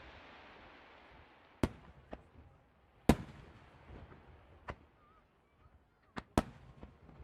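Fireworks going off: about six sharp bangs at irregular intervals, the loudest about three seconds in and near the end, with a fading hiss between them.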